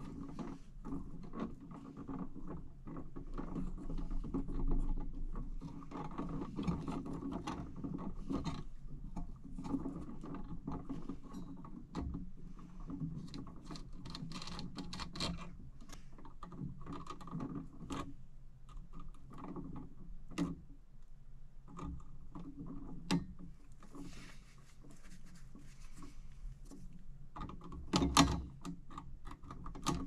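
Irregular small clicks and rattles of pliers and stiff electrical wires being handled at a metal junction box, over a steady low hum.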